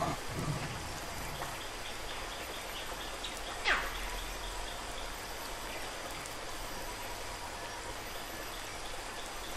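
Steady rushing of running water, like a small stream or water feature, with a single short falling squeak about four seconds in.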